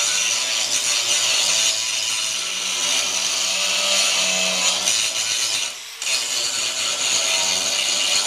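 Angle grinder grinding off old welds on a steel backhoe bucket: a steady, harsh grinding noise that drops away for a moment about six seconds in, then starts again.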